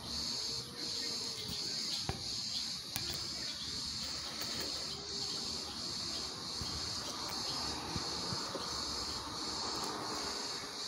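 Insects chirping in a steady pulsing rhythm, with a cat's low, drawn-out yowls rising and falling a few times beneath them: the warning calls of a cat squaring up to fight another.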